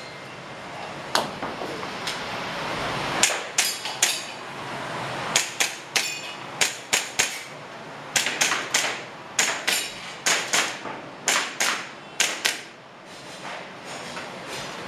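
Airsoft pistol firing in quick strings of two to five shots with short pauses between, some shots followed by a brief metallic ring.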